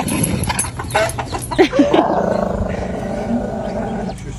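Chickens clucking and squawking, with scuffling.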